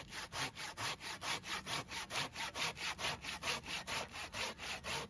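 Corona 18-inch RazorTOOTH pruning saw cutting through a dead branch about 3 inches thick, with fast, even back-and-forth strokes and a rasp on each push and pull. The cut goes through easily.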